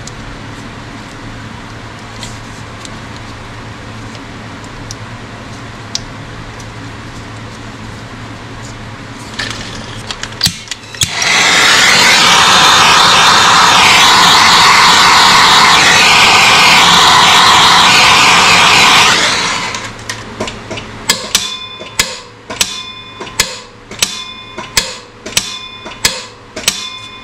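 Handheld gas torch burning with a loud, even hiss for about eight seconds, then shut off. Underneath is a steady low hum. Toward the end come sharp ringing clicks, evenly spaced at about one and a half a second.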